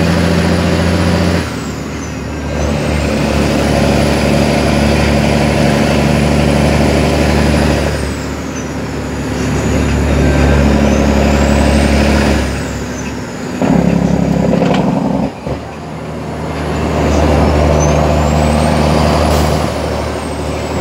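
International 9900i truck's diesel engine heard from inside the cab while driving. The engine note repeatedly drops and climbs again as the driver works through the gears, with a short break about two-thirds of the way through. A thin high whistle rises and falls with the revs.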